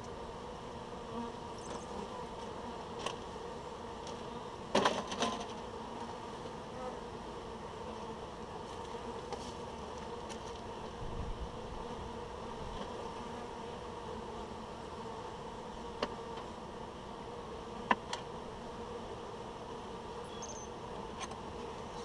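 Honeybees buzzing in a steady hum around a hive, with a few sharp knocks: a cluster about five seconds in and two single ones later.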